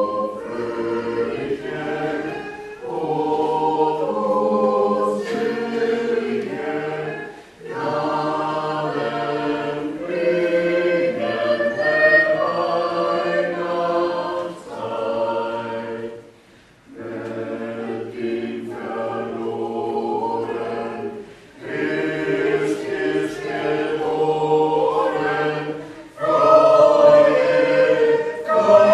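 Small mixed choir of women's and men's voices singing a Christmas carol, in sustained phrases with short breaks between them.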